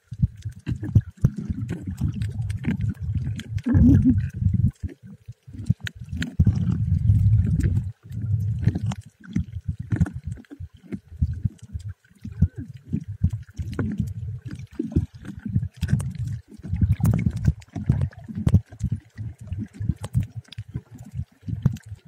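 Muffled underwater sound picked up by a camera filming while snorkelling: irregular low rumbling and sloshing of water moving around the camera, with scattered small clicks.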